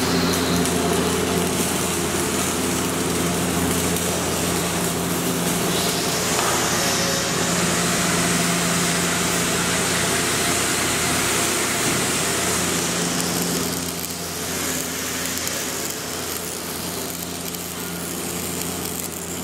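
Steady drone of running machinery: a low hum with its overtones under a broad hiss, easing off a little about two-thirds of the way through.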